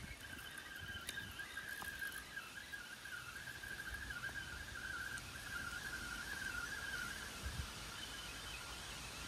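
A steady high whistling tone, wavering slightly in pitch, that fades out about seven seconds in.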